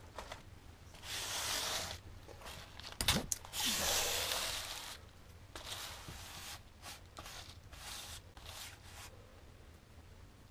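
Plastic bubble wrap rustling and crinkling as a hand presses and smooths it against a window, in several short bursts with a few sharp crackling clicks about three seconds in.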